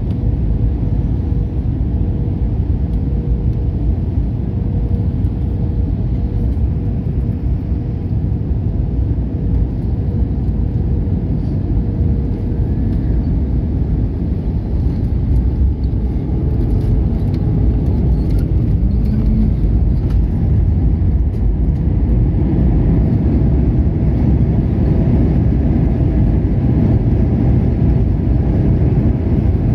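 Airbus A320-family airliner heard from inside the cabin on landing: a steady deep rush of engines and airflow, with a faint hum that fades out about twelve seconds in. After touchdown the noise grows louder and rougher from about twenty seconds in, as the jet rolls out on the runway with its spoilers raised.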